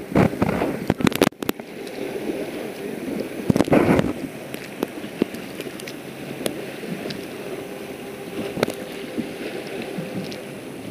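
Wind buffeting the microphone over water lapping, with a cluster of knocks and bumps in the first second and a half and a louder gust about four seconds in.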